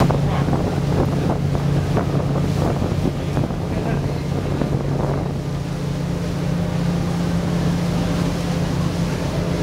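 Boat engine running with a steady low drone, with wind buffeting the microphone. Over the first five seconds a scatter of brief sharp sounds breaks in irregularly.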